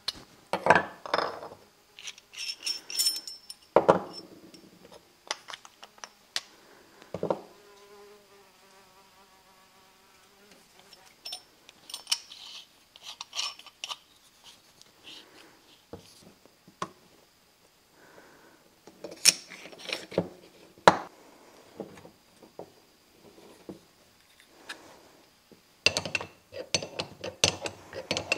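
Metal compression fittings for air line being handled and fitted together with blue tubing on a wooden workbench: scattered clinks, taps and knocks, busiest near the start and the end. A brief buzz comes about eight seconds in, and a faint steady high whine runs through the middle.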